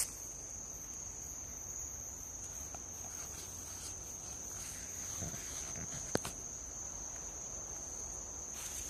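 Night insects trilling steadily, one continuous high-pitched note without a break. A single sharp click sounds about six seconds in.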